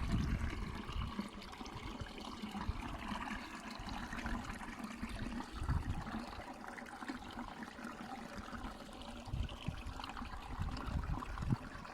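Water trickling steadily, with scattered low thuds.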